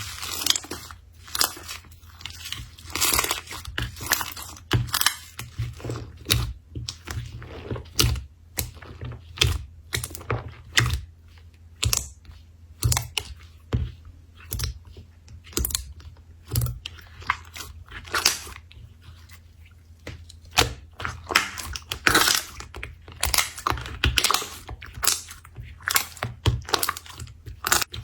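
Slime being squished, poked and stretched by hand close to the microphone, giving a string of irregular crackling pops and clicks, over a faint steady low hum.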